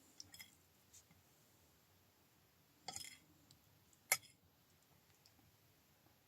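Quiet room with a few scattered small clicks and clinks: a short cluster about three seconds in and the sharpest single click about four seconds in.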